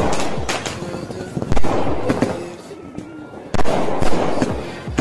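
Sunrise Blast 60 multi-colour sky-shot cake firing its aerial shots in quick succession, double speed with both fuses lit: sharp bursts about once a second, each trailing off, with a quieter gap of about a second in the middle. Background music runs underneath.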